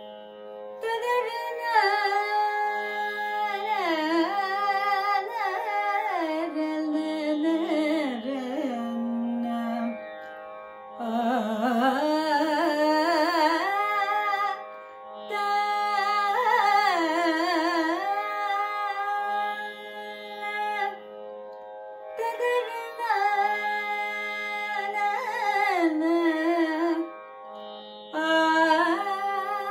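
A woman singing Carnatic classical music, with ornamented slides and wavering turns in pitch, in several phrases separated by short breaks, over a steady drone.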